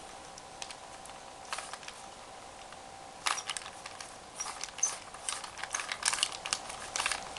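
Plastic clicking of a 3x3 Rubik's Cube as its layers are turned: a few scattered clicks at first, then quick runs of clacks from about three seconds in as the turning speeds up.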